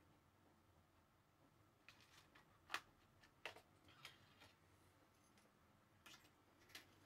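Near silence: room tone, with a scattering of faint clicks and taps starting about two seconds in, the sharpest a little before the three-second mark.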